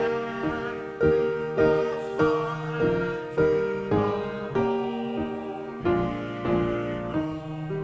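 Piano playing a slow, steady tune in struck chords, each one ringing and fading before the next.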